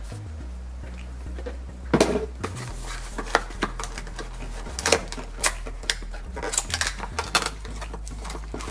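Cardboard packaging being handled and opened by hand: a sharp knock about two seconds in, then scattered light taps and clicks as the flaps of a small cardboard accessory box are worked open.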